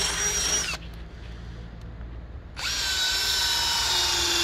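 Cordless drill-driver running in two bursts as it drives a screw into the timber of a wooden trellis: a short run ending with a dip in pitch just under a second in, then a longer run from about two and a half seconds in.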